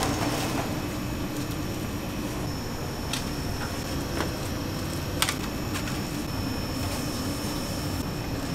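Steady hum of bakery kitchen machinery such as fans and ventilation, with a thin high whine over it. A few light clicks and knocks cut through, the sharpest about five seconds in.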